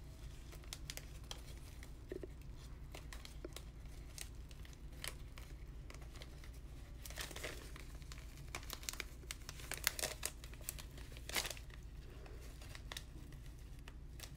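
Soft paper crinkling and rustling, with short scattered crackles, as hands untie a seam-binding ribbon from a paper packet; the crackles come a little thicker and louder around the middle.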